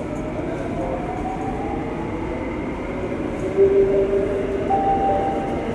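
Downtown Line MRT train running, heard from inside the carriage: a steady rumble with a faint whine rising slightly in pitch, and two brief higher tones, one about three and a half seconds in and one near the end.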